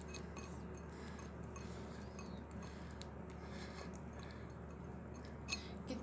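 Faint, irregular small clicks and ticks of cats crunching dry kibble from a food bowl, over a steady low hum.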